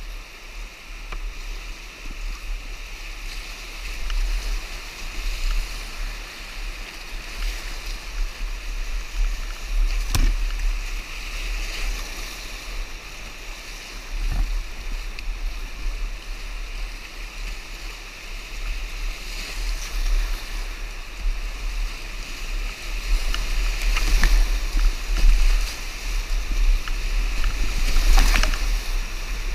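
Class III whitewater rushing and splashing around a kayak as it runs a rapid, with a couple of sharp knocks about ten and fourteen seconds in. The splashing grows louder and heavier near the end as the boat drives through breaking waves.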